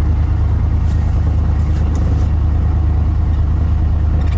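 Car engine idling: a steady, even low hum.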